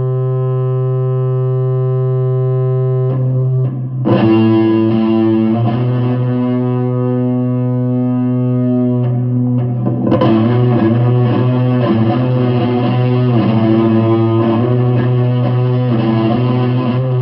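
Electric guitar played through an amplifier. It holds a long, sustained chord, then strikes a new one about four seconds in and lets it ring. From about ten seconds in it plays a run of shifting, wavering notes.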